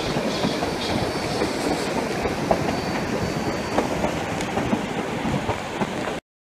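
Narrow-gauge passenger train rolling along the track, heard from aboard: a steady rumble with the wheels clicking over rail joints and a faint high wheel squeal in the first half. The sound cuts off abruptly near the end.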